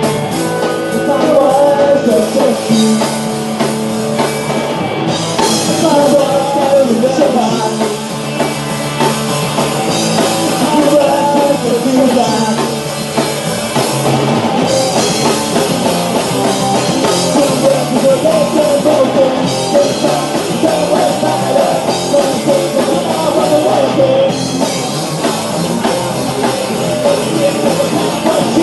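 Punk rock band playing live: distorted electric guitars and a drum kit, with men singing.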